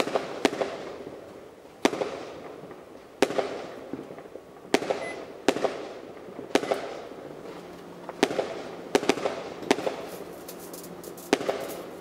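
Repeated sharp bangs of fireworks or firecrackers, roughly one a second, each followed by a long echoing tail. A short beep sounds about five seconds in. About seven seconds in, a microwave oven switches on and a steady hum begins under the bangs.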